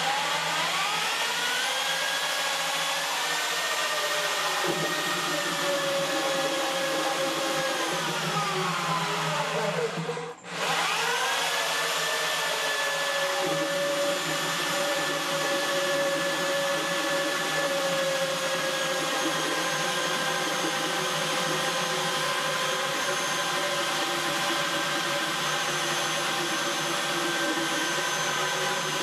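Drill motor spinning the plastic impeller of a water vortex tube, a steady motor whine. It speeds up at the start, slows and nearly stops about ten seconds in, then speeds up again and runs steadily.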